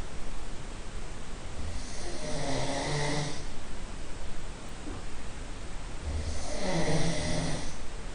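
A person snoring in the next room, heard from there: two long snores, one about two seconds in and one about six seconds in, each lasting a second and a half or more, with a low buzz and a breathy hiss.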